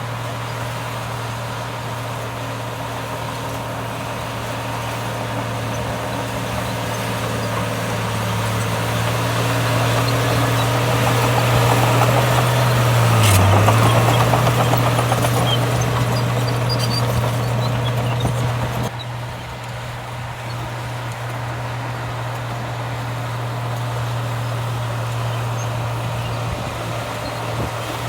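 Heavy earthmoving diesel engine running steadily, growing louder toward the middle. About halfway through there is a sharp click and the engine briefly dips in pitch, then the sound drops quieter about two-thirds of the way in.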